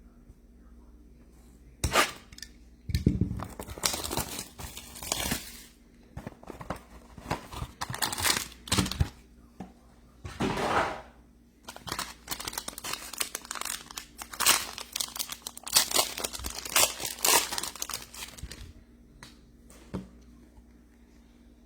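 Plastic wrapping on trading card boxes and packs crinkling and tearing as it is ripped open and handled, in irregular bursts from about two seconds in until near the end.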